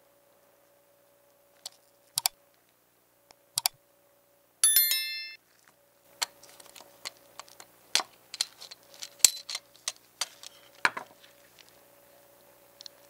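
Clicks and taps of a small diecast model car and its parts handled in gloved fingers: a few separate clicks, a short bright metallic ring about five seconds in, then a busier run of clicks and light rattles.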